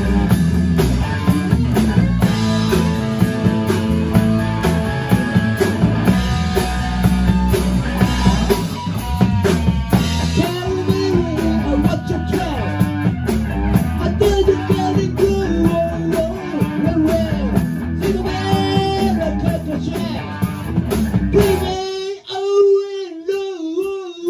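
Live rock band playing loudly: two electric guitars, bass guitar and drum kit, with a lead line bending and wavering over the rhythm. About 22 seconds in the band stops and a single held, wavering note sounds on its own.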